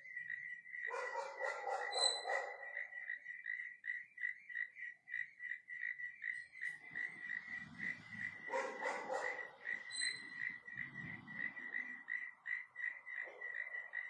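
Steady rhythmic chirping at one pitch, about three to four chirps a second, from a night-calling animal. A louder, rougher sound rises over it about a second in and again around eight to nine seconds.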